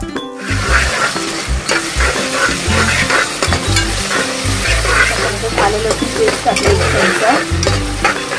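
Sliced onions and ginger-garlic paste sizzling in hot oil in a pressure cooker, stirred with a spoon against the pan. The sizzle starts about half a second in.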